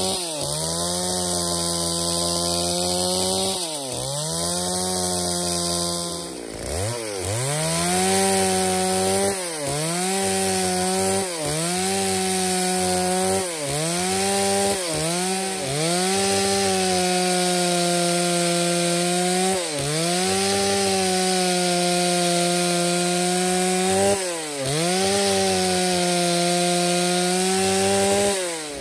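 Stihl MS 381 two-stroke chainsaw at high revs, ripping a dry angico log lengthwise into boards. The engine pitch dips briefly every second or two as the chain bogs in the cut and then recovers.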